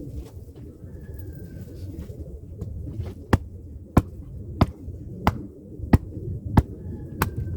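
Hand axe striking a log again and again: seven sharp, evenly spaced knocks, about three every two seconds, starting about three seconds in, over a low rumble.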